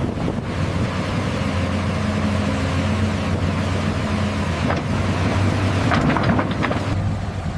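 Excavator's diesel engine running steadily under work, with a few knocks in the second half.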